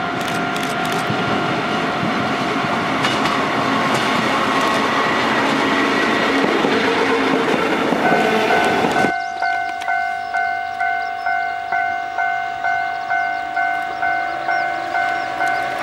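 Kotoden electric train running, with rail and motor noise that slowly grows louder. Then, after a cut, a railway level-crossing bell rings about twice a second as the retro-liveried car 23 approaches.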